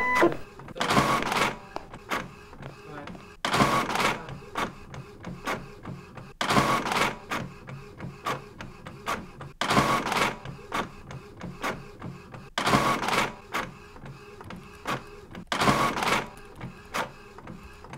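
Office printer-copier running a print job. A mechanical whirring swell about every three seconds, each followed by a run of clicks, as the sheets feed through one after another.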